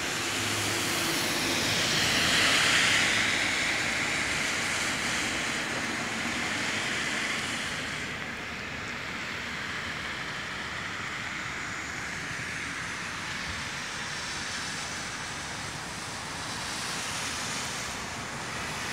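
Steady rushing noise of rainwater running along a roadside gutter, with a passing vehicle swelling and fading about two to three seconds in.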